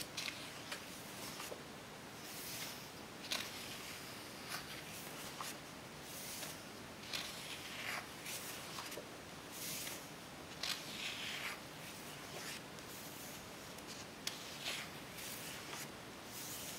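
Pages of a large photo book being turned by hand: repeated papery swishes and rustles, with small ticks as the paper is handled and settles.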